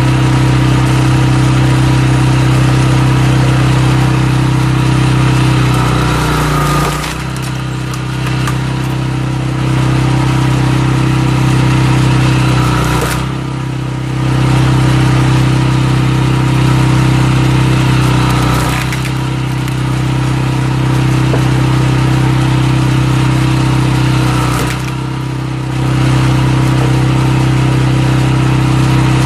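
Walk-behind cultivator's small engine running steadily while driving a screw cone splitter into oak logs. About every six seconds the engine note sags and drops in level under the load, and several of these dips come with a brief sharp crack.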